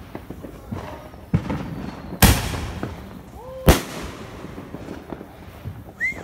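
Aerial fireworks bursting: two loud bangs about a second and a half apart, the first a little past two seconds in with a trailing crackle. Lighter pops come before them.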